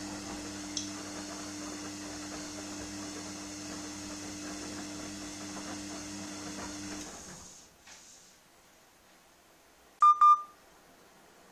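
Gorenje front-loading washing machine turning its drum through a high water level: a steady motor hum with water and laundry sloshing. It winds down and stops about seven seconds in as the drum pauses. About ten seconds in, a loud short double beep.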